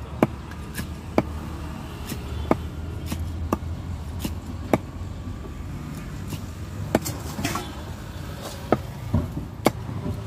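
Cleaver chopping a fish into pieces on a wooden log chopping block: sharp knocks at uneven intervals, about ten in all, over a steady low rumble.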